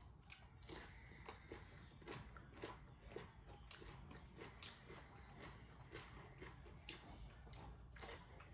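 A person chewing a mouthful of rice and vegetable soup: faint, wet mouth clicks and smacks, about two a second.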